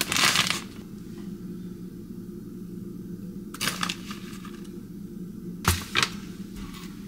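Plastic bag of shredded mozzarella cheese rustling as cheese is shaken out onto a sandwich, a brief burst at the start and another a few seconds later. Two sharp taps close together near the end, over a steady low hum.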